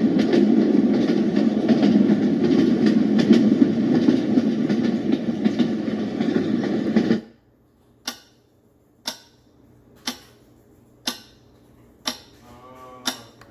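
White noise machine playing its built-in sounds. A dense, rushing noise with a fine clatter in it cuts off about seven seconds in, and a sound of sharp ticks about once a second follows.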